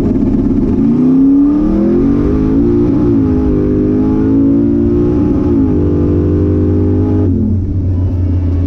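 Twin-turbo Camaro's engine running under light throttle, revs rising about a second in, holding with small changes in pitch, then dropping off near the end.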